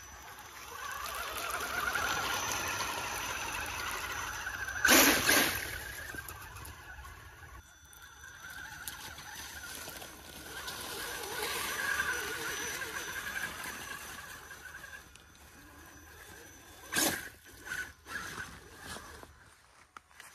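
Axial Wraith RC rock racer's electric motor and geared drivetrain whining, swelling and fading as the throttle is worked, over the noise of its tyres on ice and rocks. Two sudden loud noises stand out, about five seconds in and near the end.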